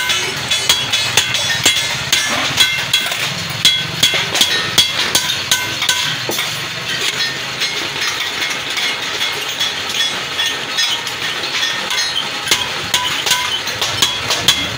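Hand-cranked beading rollers pressing a groove into a sheet-steel bucket body as it is turned. Rapid, irregular metallic clicks and clinks run throughout, with the thin sheet briefly ringing.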